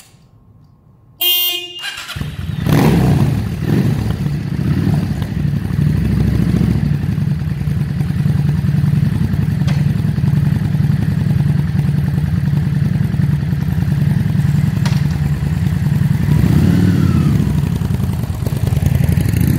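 A short horn beep about a second in. Then the 2003 Yamaha V-Star 650's air-cooled V-twin starts, is blipped a couple of times, and idles. It revs again as the bike pulls away near the end.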